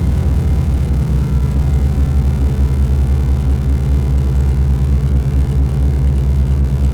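Loud, dense electronic drone from analog synthesizers through effects pedals: a deep bass throbbing in a fast pulse, with steady held tones stacked above it.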